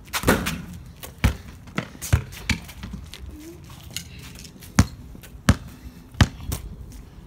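Basketball bouncing on concrete pavement: about ten sharp bounces at uneven intervals, with a pause of about two seconds in the middle.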